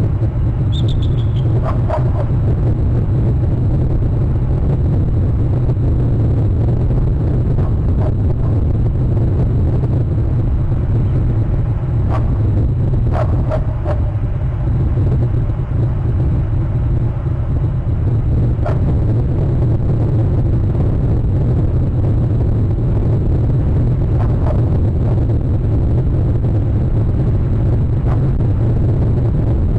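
Steady low wind rumble on an outdoor microphone, with a few short bird calls scattered over it; the first, a brief high falling call, comes about a second in.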